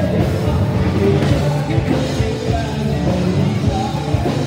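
Music with singing, playing loudly.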